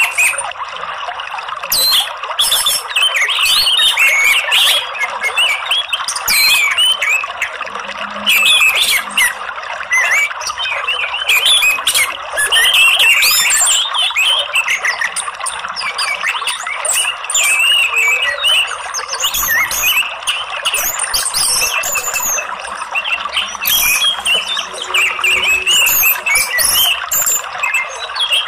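Orange-headed thrush calls: a constant stream of high chirps, squeaks and chattering phrases over a steady rush of flowing water. It is a lure recording meant to draw a caged orange-headed thrush into song.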